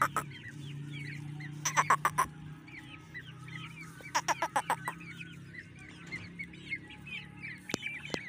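Young aseel chicks peeping in short, high chirps. Two louder bursts of rapid clucking come from the flock about two seconds in and again around four to five seconds in.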